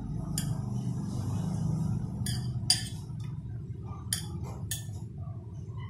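Metal spoon clinking against ceramic and stainless steel bowls as liquid agar jelly is spooned from one bowl into a pan: several sharp separate clinks over a steady low hum.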